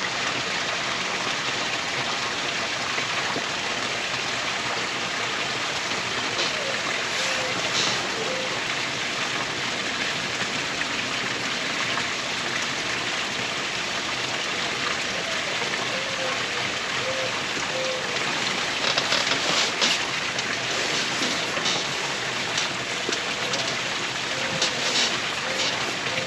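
Steady rushing hiss of outdoor background noise, with a few faint brief chirps and some light ticks in the second half.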